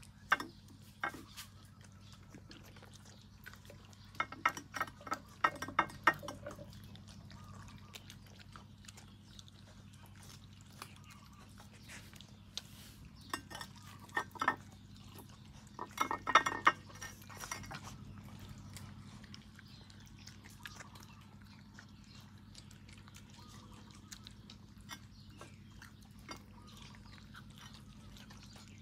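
Dog eating from a bowl: scattered clicks and clinks of food and bowl, in bursts about four seconds in and again just past the middle, with quieter stretches between, over a low steady hum.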